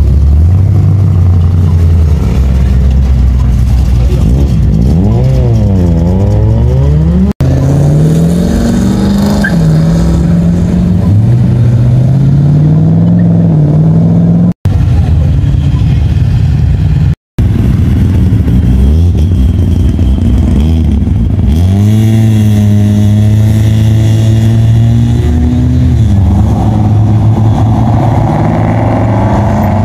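Classic cars' engines revving hard and accelerating away one after another, the engine note climbing and falling repeatedly. The sound drops out abruptly three times where clips are joined.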